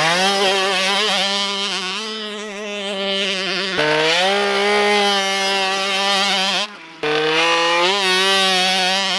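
Small dirt bike engine running under throttle, its pitch climbing and then holding steady. It breaks off abruptly and restarts a few times, with a short drop nearly to quiet about seven seconds in.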